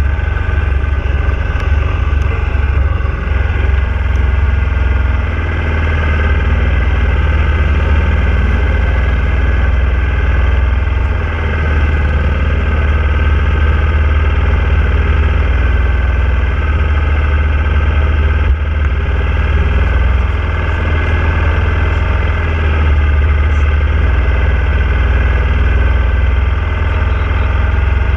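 Hyosung motorcycle's V-twin engine idling steadily with a deep, even rumble, heard close up from the bike itself.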